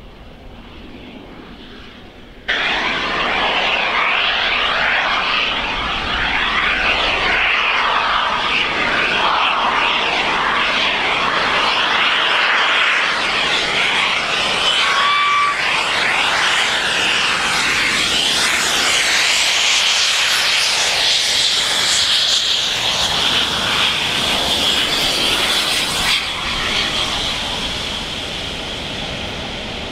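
Steam locomotive 60163 Tornado, a three-cylinder A1 Pacific, working hard past at speed with an eleven-coach train; its loud exhaust comes in suddenly about two seconds in. After about 26 seconds it eases and loses its top end as the coaches roll by on the rails.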